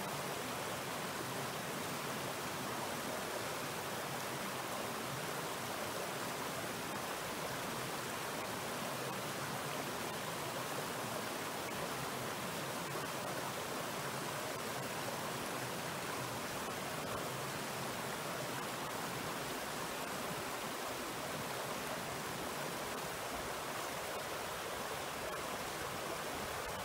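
Mountain stream running: a steady rush of water.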